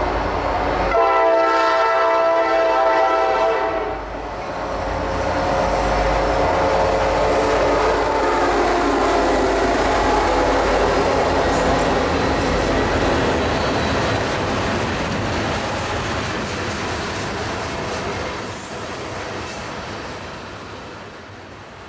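Diesel freight locomotive horn sounding one blast of about three seconds, starting about a second in. It is followed by the train rolling by with rumbling and wheel clatter on the rails, fading near the end.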